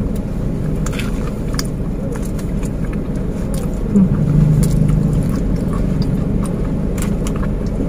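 Close-up chewing with small clicks and crunches, over a steady low rumble inside a car. About four seconds in, a short closed-mouth hum.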